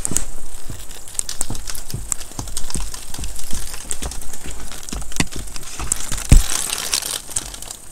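Icicles along a wooden deck railing being snapped and knocked off by hand: a run of sharp clicks and snaps, with a louder knock about six seconds in and a crinkly rustle just after it.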